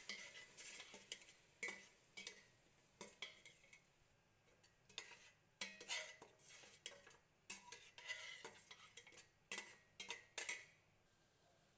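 Metal spoon scraping and clinking against a steel cooking pot as beef and yogurt are stirred together. The strokes are short and irregular and stop about a second before the end.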